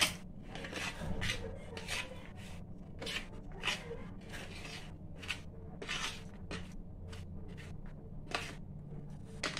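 Steel spoon stirring diced tomato and onion in a plastic tray: irregular scrapes and taps of the spoon against the tray as the vegetables and spices are mixed.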